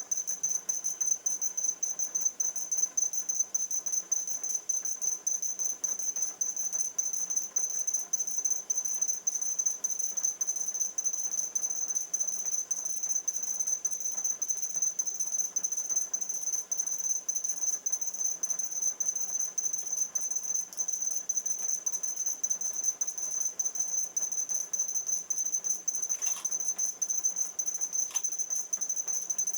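E-puck robots' on-board speakers beeping: a dense, unbroken stream of short, high-pitched beeps at one pitch, overlapping in a fast pulsing, sped up to double speed. The robots count these beeps to judge how close the rest of the swarm is.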